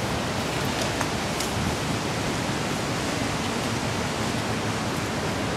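Strong wind rushing over the microphone, a dense, even hiss that holds steady throughout.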